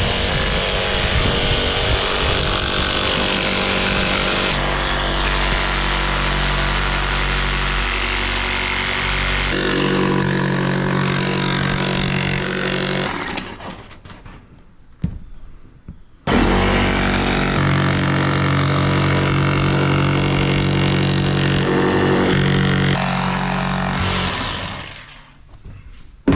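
Cordless power saw cutting through the shuttle bus's sheet-metal roof to make the fan opening. It runs steadily with a few changes in speed, stops about 13 seconds in, gives a couple of brief blips, then runs again for about eight seconds before winding down.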